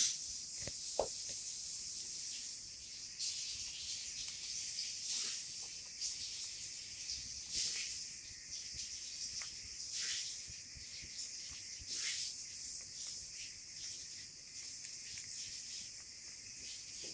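A lop-eared rabbit munching pellets and dried hay from a plastic tub: soft crunching and rustling over a steady high hiss, with a few louder rustles every couple of seconds.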